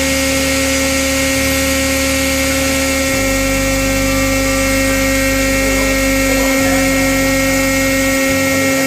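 Hydraulic power unit running: the electric motor and pump give a steady hum with constant high whine tones. The low drone shifts in steps a few times while the panel knob is turned.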